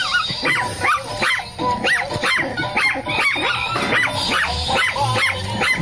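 Small dog barking in rapid, high-pitched yaps, about two a second.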